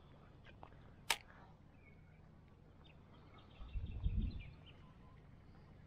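Faint, quiet outdoor ambience with a few short bird chirps, a single sharp click about a second in, and a low bumping rumble around four seconds in as the kayak-mounted camera is moved.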